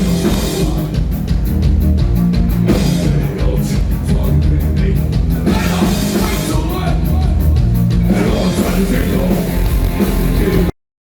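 Industrial band playing loud, with heavy bass, a steady drum beat and some singing, heard from the crowd at a concert. It cuts off suddenly near the end.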